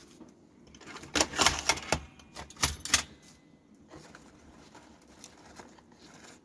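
Hand-operated mechanical cigarette filling machine clattering as it is worked: a burst of rapid clicks and rattles lasting about two seconds, followed by a few quieter scattered clicks.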